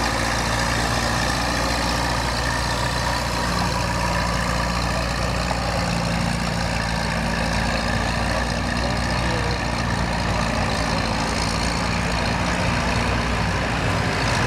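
Minneapolis-Moline tractor engine running flat out under heavy load as it drags a weight-transfer pulling sled, its pitch holding steady.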